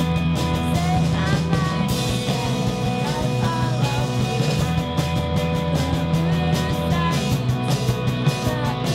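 Indie rock band playing live on electric guitars, bass and drum kit.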